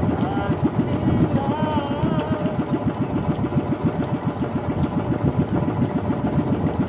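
Small outrigger banca's engine running steadily under way, a fast even chugging. For the first couple of seconds a faint wavering melody rides over it.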